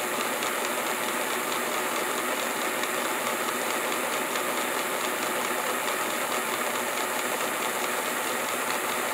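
Mantua 0-6-0T 'Little Six' model locomotive running on a roller test stand: its open-frame motor, gears and driving wheels make a steady mechanical whir. The freshly lubricated mechanism is running nice and smooth.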